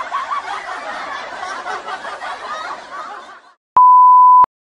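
People laughing and chuckling for about three and a half seconds, then a loud, steady beep tone lasting about two-thirds of a second.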